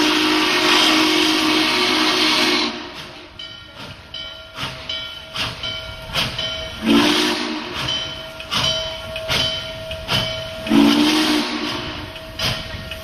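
Norfolk & Western J-class No. 611 steam locomotive arriving, its steam whistle sounding a long hissing blast that stops about two and a half seconds in. Then its bell rings at a steady pace, about twice a second, with two short whistle blasts about seven and eleven seconds in.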